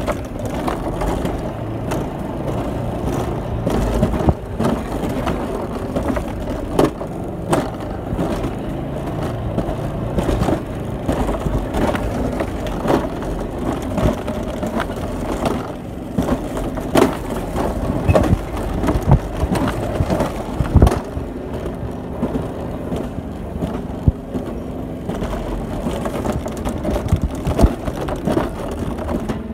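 Mountain coaster sled's wheels running along its steel tube rail: a steady rumble broken by frequent sharp clacks and knocks.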